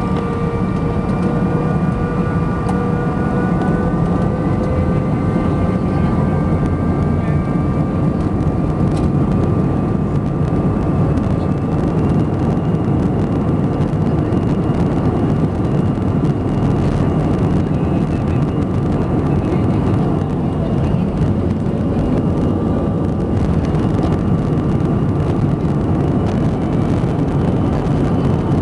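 Airbus A321 jet engines at take-off power, heard from inside the cabin: a loud, steady rush with engine whines that slowly rise in pitch and then level off.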